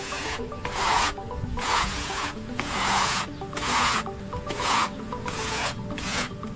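Hand scraping or rubbing on a hard surface, about one and a half back-and-forth strokes a second, over faint background music.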